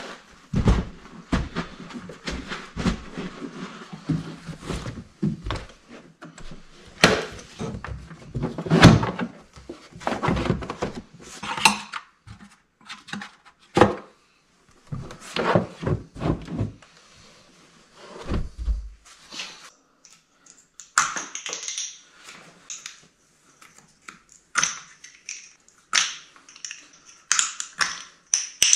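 Irregular thuds and knocks with some rustling as things are moved around in a VW Golf MK6 SportWagen's cargo area and the cargo floor panel is lifted off the spare-wheel well. In the last few seconds, lighter sharp clicks and taps.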